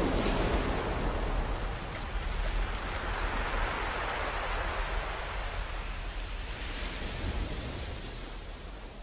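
Even rushing noise, like surf or rain, that swells a little in the middle and fades out steadily toward the end.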